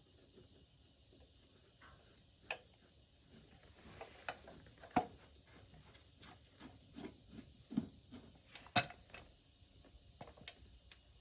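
Irregular metallic clicks and taps as bolts, nuts and washers are fitted and hand-tightened to clamp a cover onto a rotary hoe's gearbox housing.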